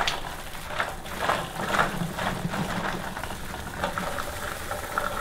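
Cheese balls rustling and rattling against one another and against a plastic tub being handled, an irregular patter of light clicks.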